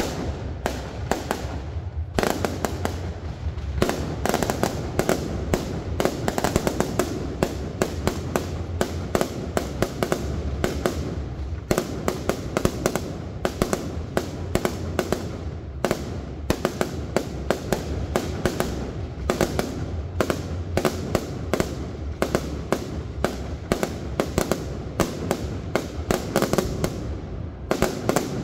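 Fireworks display: aerial shells bursting in rapid, overlapping bangs, several a second, over a continuous low rumble.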